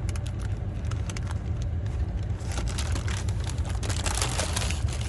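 Close-up eating sounds: chewing and mouth clicks while biting into a sandwich, as many short sharp clicks that grow denser past the middle, over a steady low rumble.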